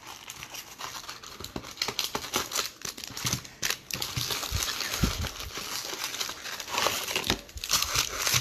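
Foil Topps baseball card packs crinkling and crackling as they are pulled from their cardboard box by hand and stacked on the table, with a few soft thumps as they are set down.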